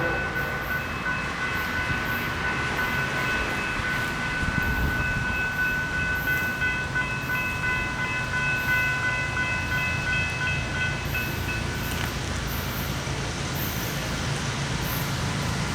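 Florida East Coast Railway freight train rumbling by, with a steady high-pitched tone over it that stops about twelve seconds in.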